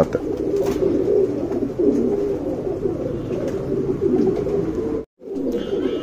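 Domestic pigeons cooing, a continuous chorus of overlapping low coos. The sound cuts out for a moment about five seconds in.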